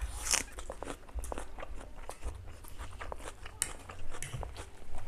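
Two people eating chow mein noodles, slurping them in and chewing, with a string of short wet clicks and smacks. The loudest slurp comes just after the start.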